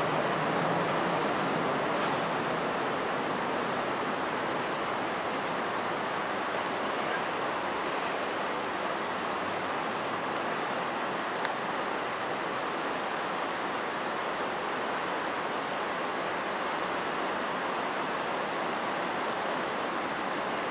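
Steady, even rushing of shallow river water flowing over a gravel and rock bottom.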